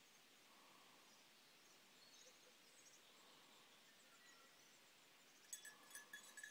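Near silence: faint outdoor ambience with a few faint high chirps. About five and a half seconds in, a quick run of small clicks starts together with a thin steady high tone.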